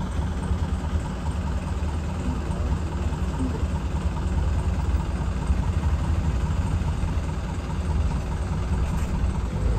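Motor vehicle's engine running steadily, a continuous low rumble.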